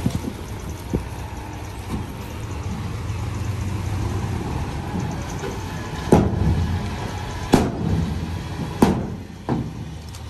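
Dump truck's engine running low and steady after tipping a load of soil and rocks, with four or five sharp knocks in the second half as the truck starts to pull away with its tailgate hanging open.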